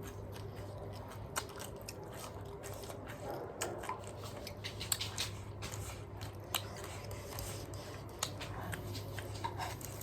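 Cabbage being chewed and crunched close to the microphone: scattered sharp crunches over a steady low hum.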